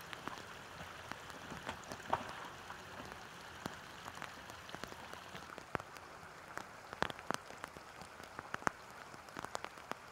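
Quiet, steady trickle of water with irregular drips and small ticks scattered through it.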